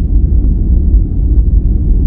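Steady, deep rumbling noise for sleep and relaxation, heavy in the bass and dull in the treble, without any change or rhythm.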